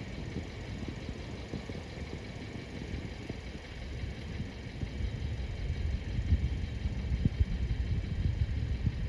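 Steady road and engine rumble of a truck being driven, heard as a low, uneven drone.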